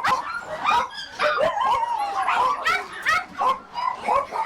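Many caged dogs barking, yelping and whimpering at once, their calls overlapping without a pause.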